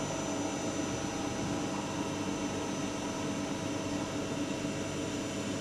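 CNC lathe running with its spindle turning while the tool takes a light cut on the workpiece: a steady mechanical hum with faint constant tones.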